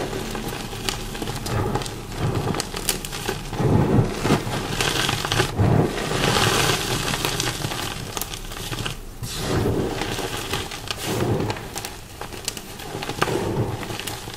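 Close-miked crunching and chewing of chunks of dyed, pasted chalk block: irregular gritty crunches over dull low thuds, with loud bites about four and five and a half seconds in. The crunchy texture comes from the dye and paste, which the owner says turned this chalk crunchier.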